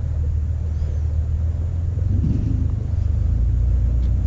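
Steady low rumble of wind buffeting the camera microphone.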